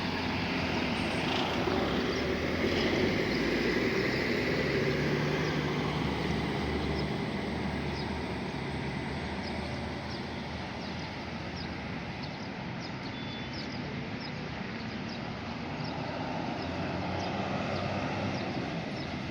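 Diesel intercity bus engine running as the bus pulls away, a steady low rumble with road and traffic noise, a little louder a few seconds in and easing off in the middle.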